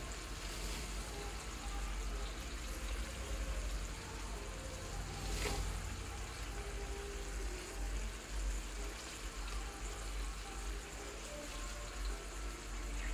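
Tomato sauce simmering around sardines in a wok, a soft bubbling hiss over a low steady hum, with one faint click about five and a half seconds in.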